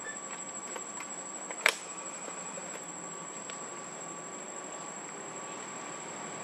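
Insects droning steadily in a high, thin continuous tone. A single sharp click comes about a second and a half in.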